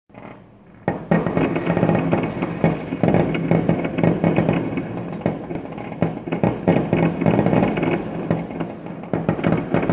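Fireworks from a nearby rooftop: a dense, rapid crackle of many small pops and bangs that starts about a second in, over a steady low drone.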